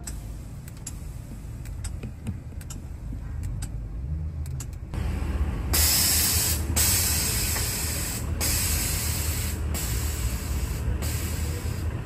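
Aftermarket air suspension on a 30-series Toyota Alphard letting air out of its air springs to lower the car. About five seconds in, a loud hiss of venting air starts and comes in about five bursts separated by short pauses, as the air is let out a little at a time. A low rumble runs underneath.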